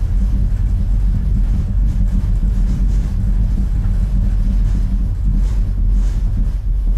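REL HT1205 subwoofer, a sealed cabinet with a 12-inch driver, playing a film soundtrack's bass on its own at about 95 dB. It is a loud, steady, deep low-end with almost nothing above the low bass.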